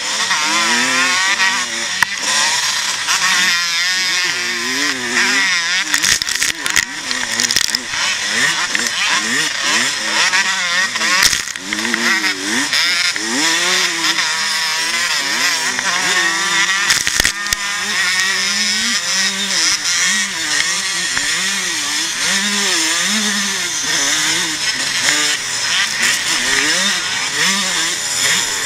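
Vintage motocross motorcycle engine racing on a dirt track, heard from the rider's own helmet, its pitch climbing and dropping over and over as the throttle is opened and closed and the gears change, with other bikes nearby. A few sharp knocks come through, about a quarter, two fifths and three fifths of the way in.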